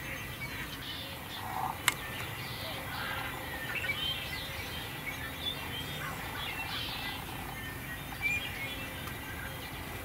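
Small birds chirping and calling in the dawn chorus, many short scattered chirps, with one sharp click a little under two seconds in.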